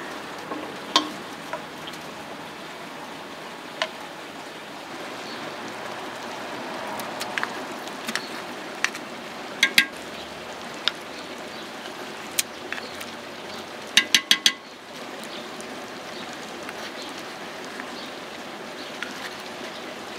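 Wooden spoon knocking and tapping against a small wooden bowl and an aluminium pot as paste and spice are spooned in. Scattered single knocks, a pair about halfway and a quick run of four taps about two-thirds of the way through, over a steady hiss.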